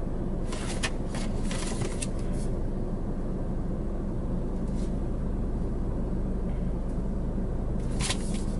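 Glossy catalog pages rustling in short strokes as they are handled and turned, a cluster in the first couple of seconds and again near the end, over a steady low hum inside a parked car.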